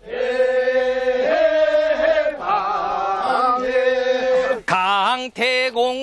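A group of men singing a Korean rice-paddy weeding work song as a drawn-out chant, several voices holding long notes together. A short break comes near the end before the next phrase starts.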